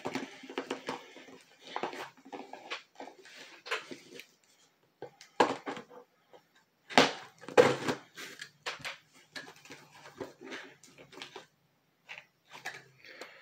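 Cardboard shipping box being worked open by hand: irregular rustles, scrapes and sharp tearing sounds, the loudest about five and a half and seven seconds in. The box is hard to get open.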